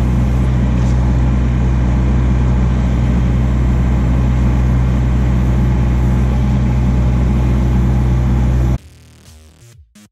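John Deere 60G compact excavator's diesel engine running steadily under load as it digs silt out of a muddy channel. It cuts off abruptly near the end, giving way to quiet music.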